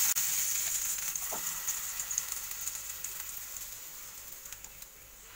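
Butter and besan (gram flour) batter sizzling in a hot non-stick pan as the batter is poured in and spread with a steel ladle; the sizzle fades steadily over the few seconds, with a few light ticks.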